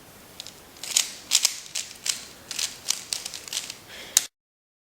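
Irregular sharp plastic clicks and clacks of a speed cube being handled and turned. The sound stops dead a little over four seconds in.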